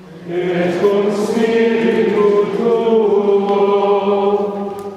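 Choir singing a short Latin plainchant response, several voices holding long sustained notes that fade out near the end.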